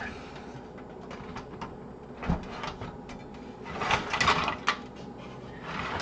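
Metal motherboard tray being slid out of a steel PC case: light clicks and a knock a little over two seconds in, then scraping of metal on metal as the tray slides, around four seconds in and again near the end.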